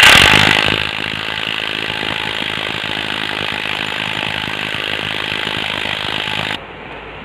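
Power tool running in one burst of about six and a half seconds, loudest as it starts, then steady, and cutting off abruptly near the end.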